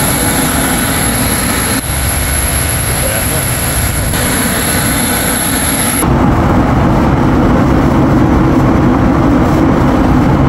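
Jet airliner's engines heard from inside the cabin as a loud, steady rush with a thin high whistle over it; about six seconds in the sound changes abruptly, the whistle stops and a louder, deeper rumble takes over.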